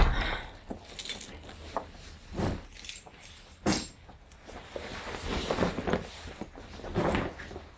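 A person moving about and taking off a backpack: rustling of the bag with a few short knocks, clinks and footsteps spread through it.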